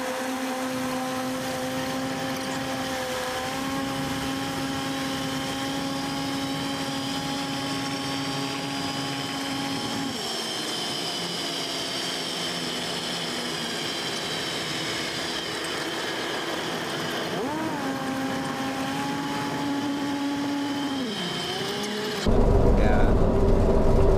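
Cessna 172SP Skyhawk's four-cylinder Lycoming engine and propeller running at low taxi power, a steady droning whine that drops in pitch about ten seconds in and briefly rises and falls again later. Near the end the sound jumps suddenly louder and rougher, with a deep rumble.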